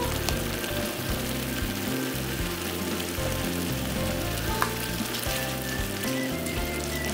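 Tomato and ground-meat sauce sizzling steadily in a frying pan, stirred with a spatula near the end.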